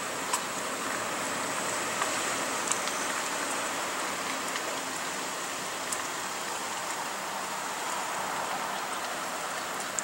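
Steady outdoor hiss, even and unbroken, with a few faint sharp clicks scattered through it.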